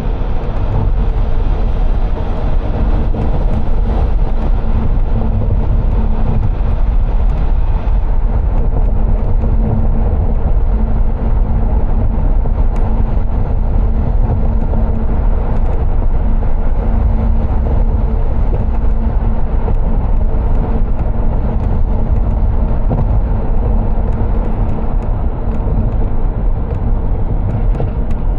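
A car driving on city streets: steady road noise, a low rumble of tyres and engine that holds even throughout.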